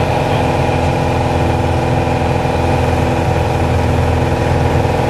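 Piper Archer's four-cylinder Lycoming O-360 engine and propeller running steadily in flight, heard inside the cockpit as an even drone.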